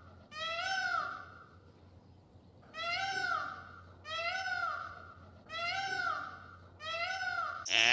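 Indian peafowl (peacock) giving a series of cat-like calls: five short cries, each rising then falling in pitch, about a second apart. A louder bleat-like cry cuts in at the very end.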